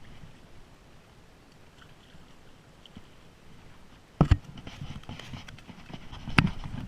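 A faint, quiet stretch, then a sharp thump about four seconds in and a second loud knock near the end, with light clicking and rustling between them.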